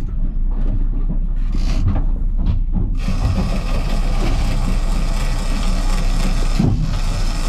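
Steady low rumble of the fishing boat's engine and hull under way, joined about three seconds in by a loud, even rushing hiss.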